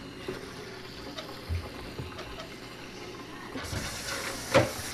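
Hot water from a kitchen tap running into the plastic solution tank of a Hoover carpet shampooer. The rush of water grows louder near the end, and a sharp knock comes shortly before the end.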